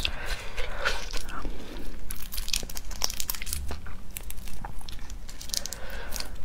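Red shrimp shell crackling and snapping as it is peeled apart by hand, a run of small close crackles and clicks.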